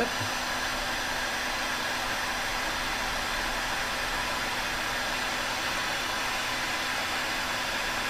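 Heat gun running on its high setting: a steady rush of blown air with a faint steady hum. It is blowing hot air onto a solder-seal heat-shrink wire connector to melt its solder ring.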